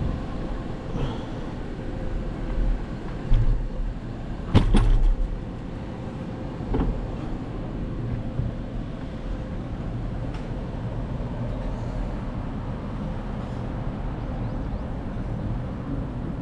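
Steady low rumble of a bicycle rolling along pavement, heard through a GoPro camera mounted on the bike, with a few sharp knocks and rattles from bumps. The loudest knock comes about four and a half seconds in.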